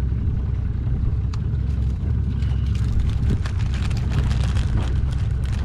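Boat motor running steadily at low trolling speed, a constant low rumble, with light crackling noise over it from about two seconds in.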